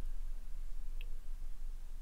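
Quiet handling of a small plastic model kit engine while glue is brushed onto a seam, with one faint tick about a second in.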